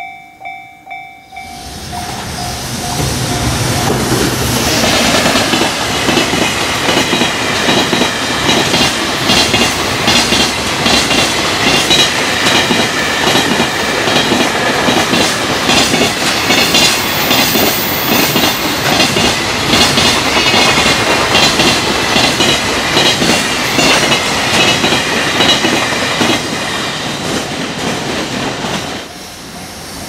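Level-crossing warning bell ringing in even pulses, swallowed after about a second and a half by a long freight train of container wagons passing at speed. The wagon wheels clatter rhythmically over the rail joints. The clatter drops away about a second before the end as the last wagons clear the crossing.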